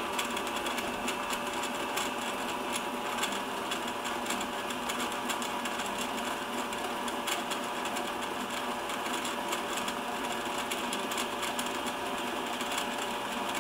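Mini lathe running with its spindle motor and gear train whirring steadily, with faint irregular ticks, as a high-speed steel shearing tool takes a light 0.1 mm facing cut across hardened steel. The cut is quiet, without chatter or squeal.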